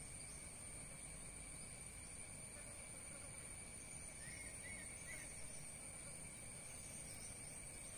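Faint outdoor ambience with a steady, high-pitched insect drone running throughout. Three short chirps come about four to five seconds in.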